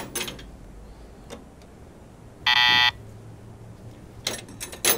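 A short electronic buzzer beep, about half a second long, about two and a half seconds in, the loudest sound here. Around it, light metallic clinks of hand tools being picked up and set down among wrenches and sockets.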